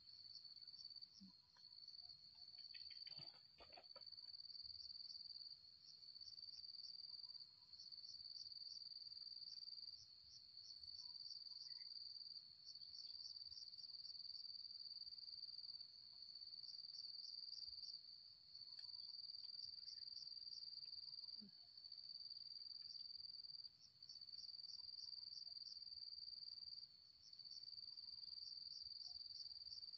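Faint, steady chorus of insects: a high, continuous trill with a pulsing edge that dips briefly every few seconds. A short rustle comes about three seconds in.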